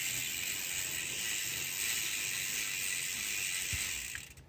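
Bicycle drivetrain spun backwards by hand at the pedal: the chain runs over the chainring, cassette and jockey wheels while the rear freehub's ratchet pawls buzz steadily, working freshly applied dry lube into the chain. It fades out just after four seconds.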